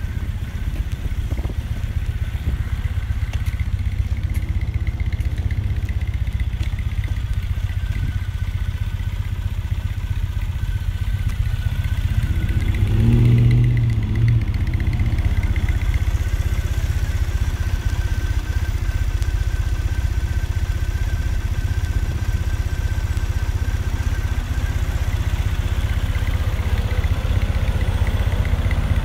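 Triumph Thruxton 900's air-cooled parallel-twin engine idling steadily, with a louder swell lasting a couple of seconds about thirteen seconds in.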